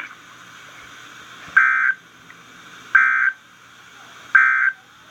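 Emergency Alert System end-of-message signal: three short bursts of buzzy digital data tones, about a second and a half apart, that close the alert.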